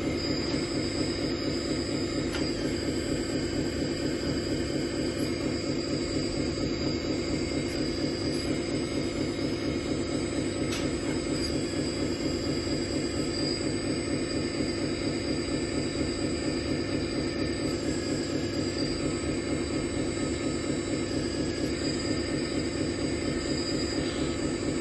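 Hydraulic pump of a Lesu RC hooklift truck with loader crane running steadily, a constant mechanical hum and whine, while the hooklift arm lowers the dump bin and the crane arm unfolds.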